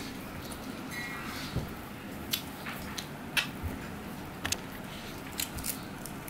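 Puffed rice being eaten by hand from a steel plate: a scatter of short crisp crackles and crunches as the grains are picked up and chewed.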